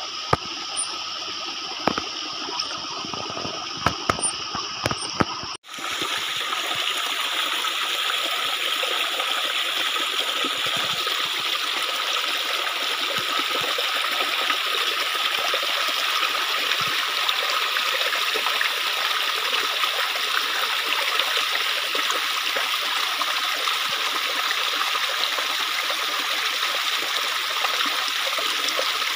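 Small rocky stream flowing: a steady rush of water, with a few sharp knocks over the first six seconds, then a louder, even rush after a sudden change about six seconds in.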